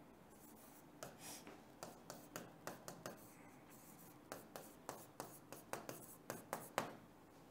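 Someone writing by hand: a faint run of short, scratchy pen or marker strokes, coming quicker in the second half. It is most likely the sentence 'nothing is impossible' being written out.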